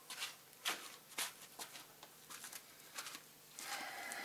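Faint, irregular slaps of slide sandals on concrete as a man walks away and back.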